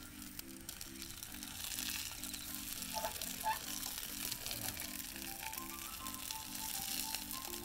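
Meat frying in a frying pan over a wood fire: a steady sizzle that swells about a second and a half in. Background music with a repeating chord pattern plays underneath.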